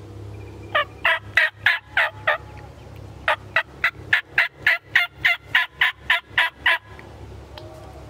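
A series of hen turkey yelps, loud and close. A run of about seven evenly spaced yelps comes first, then a short pause, then a longer run of about thirteen at roughly three a second.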